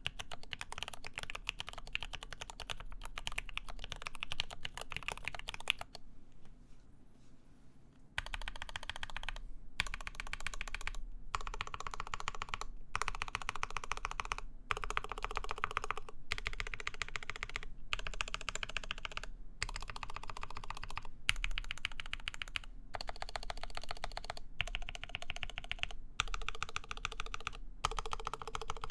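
Typing on a Lin Works EM7 mechanical keyboard with lubed ZealPC Tealios linear switches, a full aluminum plate and GMK keycaps: a fast, continuous run of keystrokes. About six seconds in there is a pause of roughly two seconds.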